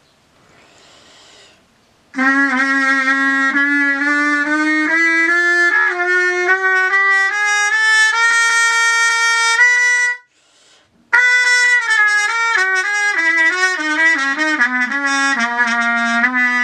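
Trumpet played with a small plastic practice mute in the bell. After a breath, a phrase of notes climbs step by step over about an octave. A short break for breath follows, then a phrase steps back down and ends on a long held low note.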